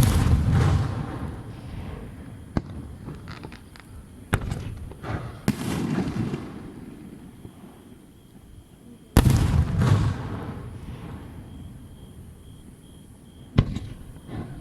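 Aerial firework shells bursting overhead: a big boom right at the start, more about four and five seconds in, another about nine seconds in and a sharp one near the end, each trailing off in a long low rumbling echo, with smaller cracks between.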